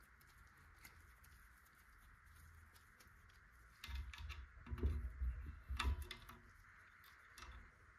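Small metal hub parts, DT Swiss ratchet rings, being handled with gloved hands: light scattered clicks and clinks. From about four seconds in, a louder run of sharp clicks and knocks as the parts are fitted into the hub.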